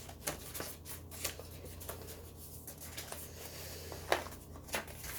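Paper and cardboard packaging being handled: rustling and light taps, with a sharper knock about four seconds in.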